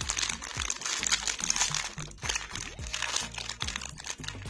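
Metallised foil cookie wrapper crinkling and crackling as it is pulled and torn open by hand, over background music.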